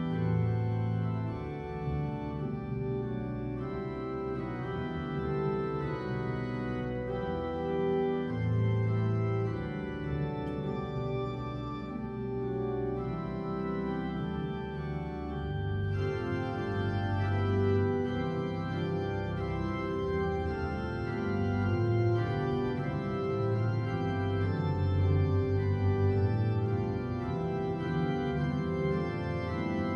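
Organ playing slow, sustained chords as prelude music before the service begins. The sound turns brighter about halfway through as higher notes come in.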